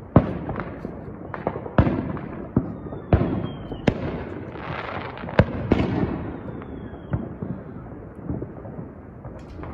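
Fireworks and firecrackers going off on New Year's Eve: many sharp bangs of varying loudness over a continuous rumble. Twice a falling whistle ends in a bang, about three and six seconds in.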